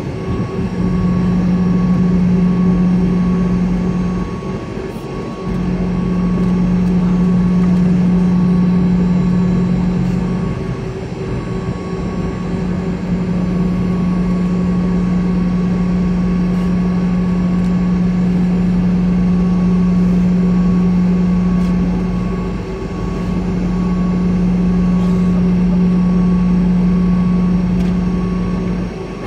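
Boeing 717 jet taxiing, heard from inside the cabin: its Rolls-Royce BR715 turbofans give a steady low drone over a constant rush of noise. The drone dips briefly three times, about five, eleven and twenty-three seconds in.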